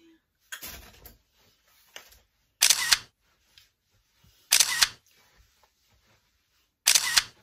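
Camera-shutter clicks, one about every two seconds, four in all.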